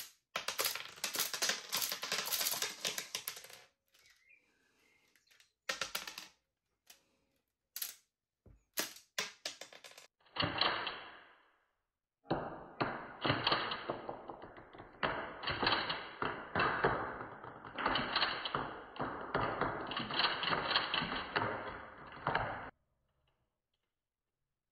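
LEGO blowback pistol mechanism cycling in full auto: rapid plastic clicking in bursts. There is one burst at the start, a few short ones in the middle, and a long run of about ten seconds near the end.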